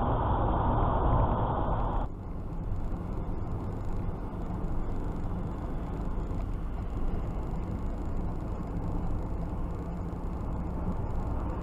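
Steady road and tyre noise of a car driving at motorway speed, heard from inside the cabin. About two seconds in it cuts abruptly to another car's cabin noise, quieter and less muffled.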